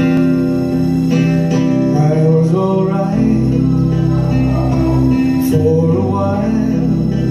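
Instrumental backing track with plucked guitar, played over PA speakers, with deeper bass notes coming in about three seconds in.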